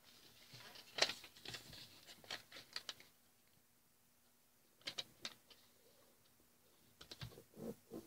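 A sheet of origami colour paper rustling and crackling as it is folded into a triangle and the crease is pressed flat on a table: faint, scattered crackles and taps, bunched in the first few seconds, again around five seconds in, and near the end.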